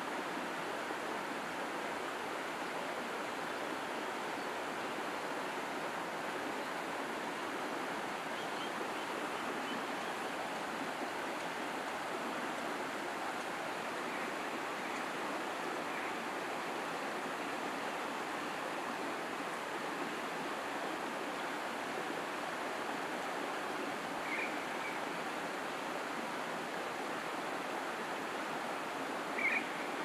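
Steady rush of running water, an even hiss with no change, broken by a few brief high chirps, the clearest near the end.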